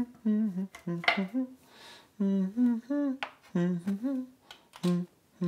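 A man humming a tune in short, bouncy notes, broken by a couple of light clicks, one about a second in and another a little after three seconds.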